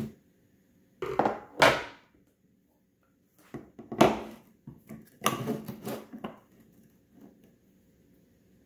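Lengths of PVC pipe handled and set down on a wooden workbench: three bursts of knocks and scrapes, the loudest about a second and a half in and at about four seconds.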